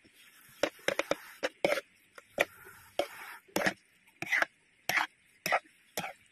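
Metal spoon scraping and knocking against a metal pan while stirring a thick tuna and cream cheese filling: short, irregular scrapes, about two a second.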